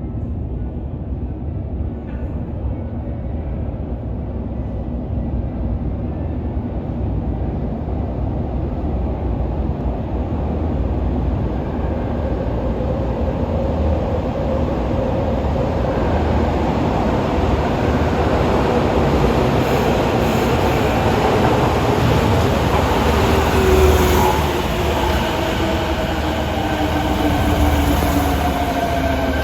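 Fukuoka City Subway 1000N series train coming into a station. The rumble grows louder, and in the last several seconds its motor whine, the jet-engine-like noise these trainsets are known for, falls steadily in pitch as the train slows.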